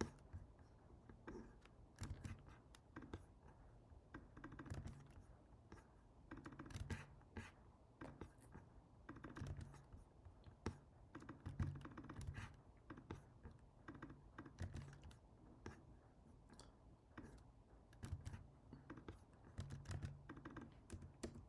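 Faint computer keyboard typing: irregular key clicks throughout.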